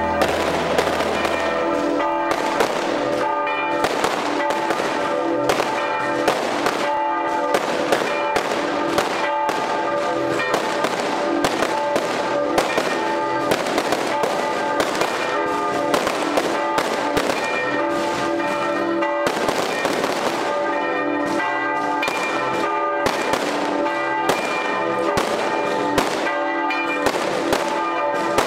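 Church bells ringing a festive peal, mixed with a long run of firecrackers going off in many sharp bangs at irregular intervals.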